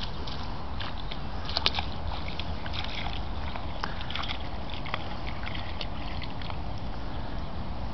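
A dog wading through shallow floodwater, with small irregular splashes and sloshes, over a steady low rumble.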